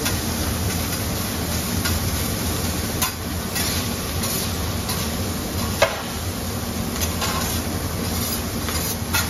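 Beef and shrimp sizzling on a steel flat-top griddle while two metal spatulas scrape, chop and tap against the plate. A few sharp metal clacks stand out, the loudest a little before six seconds in.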